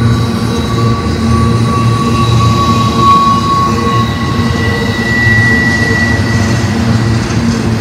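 Double-stack intermodal well cars rolling past at close range: a steady rumble of wheels on rail with a high, steady wheel squeal. One squeal tone fades about four and a half seconds in, and a higher one rings for a second or two after it.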